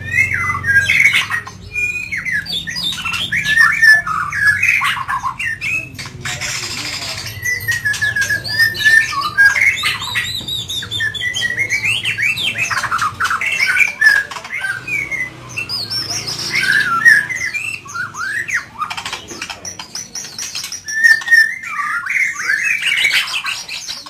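White-rumped shama (murai batu medan) singing vigorously and almost without pause in its cage. It gives a long, varied run of quick rising and falling whistled notes, rapid trills and a few longer level whistles.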